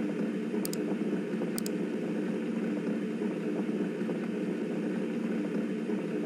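Factory I/O simulation sound of a tank filling through its open fill valve: a steady low rushing noise that starts abruptly, with two faint clicks about a second in.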